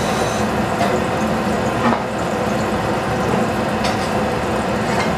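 Steady whir of a stove's ventilation hood fan over muffled frying in a covered pan, with a few faint pops.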